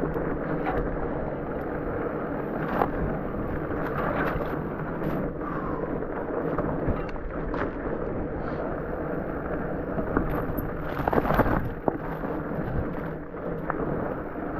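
Rigid fat bike rolling down a rough dirt trail: the fat tyres rumble over the ground, with wind buffeting the microphone. Scattered knocks and rattles come as the bike hits rocks and bumps, with a cluster of louder ones about eleven seconds in.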